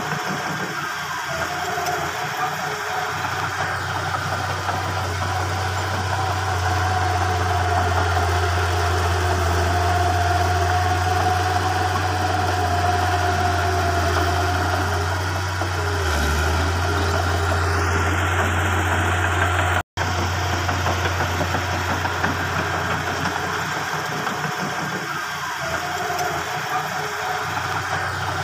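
Komatsu crawler bulldozer's diesel engine running steadily as the machine pushes fill soil, a constant low hum with a steady tone above it.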